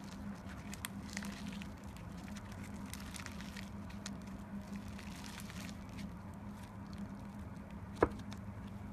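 Clay slime being squished and pressed by hands, giving soft scattered crackles and small clicks, with one sharp click about eight seconds in. A steady low hum runs underneath.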